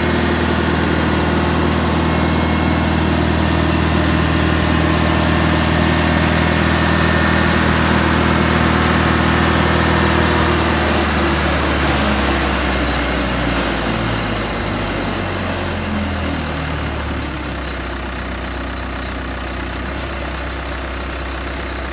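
Morbark D76 stump grinder's engine running steadily at high speed, then slowing down about halfway through and settling to a lower idle.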